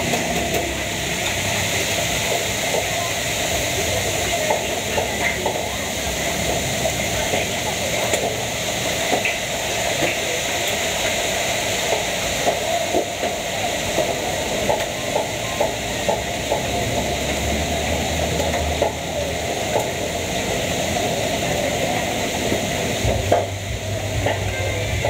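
Gas wok burner running under a wok, a steady loud rushing hiss, with scattered light clinks of kitchen utensils over it.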